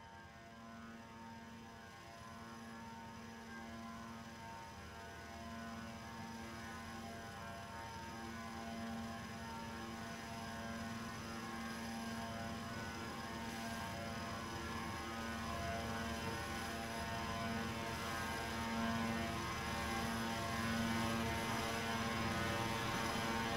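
Steady droning hum made of several held tones, slowly swelling louder throughout.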